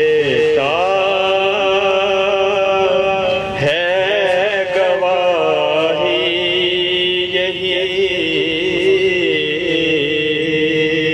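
A man's voice chanting an Urdu naat (devotional poem in praise of the Prophet) through a microphone, in long held notes that waver and slide between pitches, with short breaks for breath.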